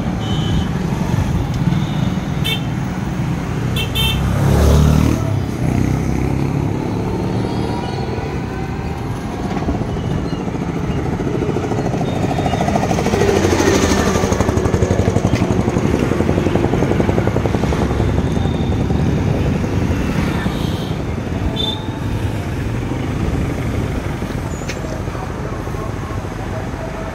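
Road traffic heard while riding along a street: a steady engine and road rumble, with short horn toots a few times in the first four seconds and a vehicle swelling loudest around the middle.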